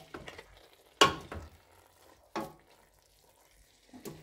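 Pasta being stirred through tomato sauce in a pot over a low flame: four short knocks and scrapes of the utensil against the pot, the loudest about a second in, over a faint sizzle.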